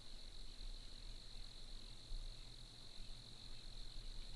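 Crickets trilling in a faint, steady, high-pitched drone that does not let up, over a low background rumble.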